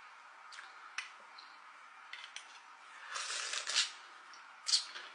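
Eating an oyster from its half-shell. A few light clicks of a spoon against the shell come first, then a loud slurp, a little under a second long, about three seconds in as the oyster is sucked off the shell, and a short loud mouth noise near the end.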